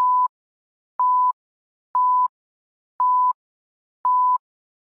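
Film-leader countdown beeps: a short, steady single-pitched electronic beep once a second, five times, one for each number counting down, with silence between.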